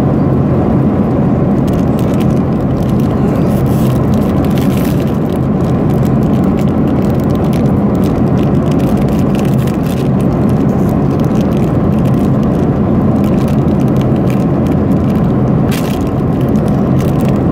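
Metallic foil wrapping of an L.O.L. Surprise ball crinkling and crackling as it is picked at and peeled by hand, over the steady low drone of an airliner cabin.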